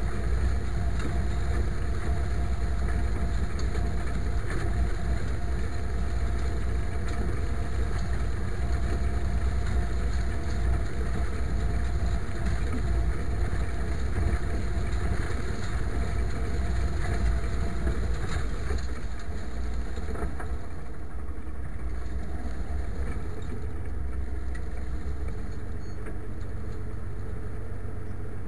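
IMT 539 tractor's three-cylinder diesel engine running steadily while pulling a harrow. The sound gets a little quieter about two-thirds of the way through.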